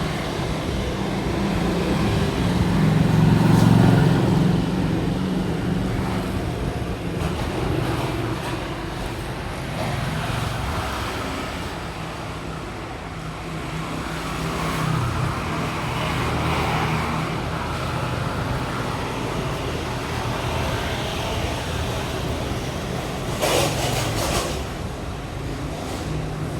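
Road traffic noise: a steady, uneven rumble of passing motor vehicles, swelling a few seconds in, with a short run of sharp knocks near the end.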